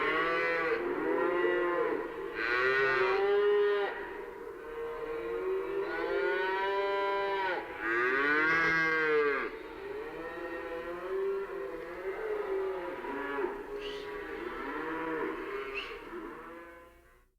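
Several cattle mooing, their long calls overlapping. The calls are louder through the first half and softer but more crowded in the second half, and they stop abruptly at the end.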